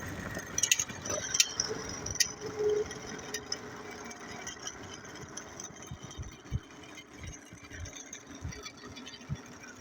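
Homemade electric bike with an alternator as its drive motor, ridden and slowing down after a fast run: a steady rumble of the drive and wind, with a faint motor whine for the first few seconds and a few sharp rattles early on.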